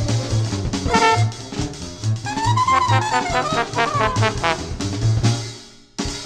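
Jazzy cartoon music with brass, drums and a pulsing bass, with a bright brass phrase that slides up and back down in the middle. It fades out near the end, and a new sound starts sharply just before the close.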